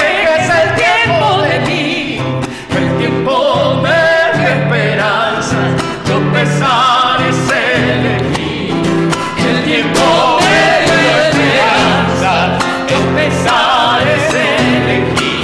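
Argentine folk cueca sung by a woman with men's voices joining in, over a strummed acoustic guitar.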